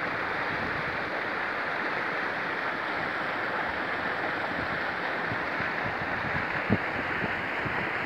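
River water running over shallow rapids, a steady rushing hiss, with wind buffeting the microphone in low gusts. A brief thump near the end.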